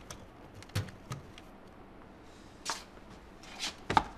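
Belongings being handled and packed into a cardboard box: a few soft knocks and short rustles, then a sharper knock just before the end, the loudest of them.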